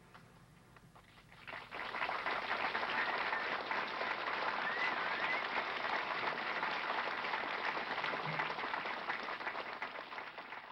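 A crowd applauding. The clapping swells in about a second and a half in and starts to die down near the end.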